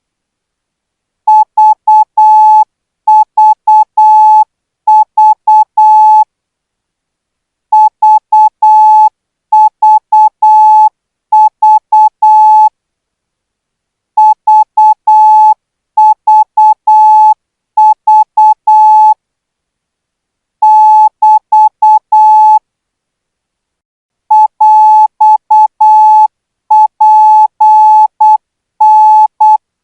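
Morse code practice tone for Thai radio-operator training, sent at 12 words per minute: one steady mid-pitched beep keyed on and off in dots and dashes. The characters come in short bunches, with longer silent pauses between the bunches.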